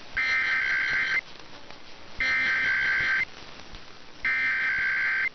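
Emergency Alert System SAME digital data burst, a rapid warble of two tones, sent three times, each about a second long with a second's pause between.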